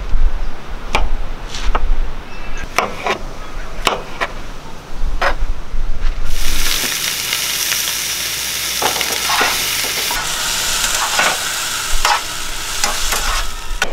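A knife chopping mushrooms on a plastic cutting board, a few separate strokes about a second apart. About six seconds in, a loud steady sizzle starts as the mushrooms go into hot butter in a frying pan, with a spatula knocking and stirring in the pan now and then.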